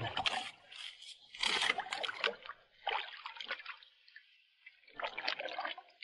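Shallow tide-pool water splashing and trickling as a gloved hand and tongs rummage in it among the rocks. It comes in irregular bursts, with a short lull about four seconds in.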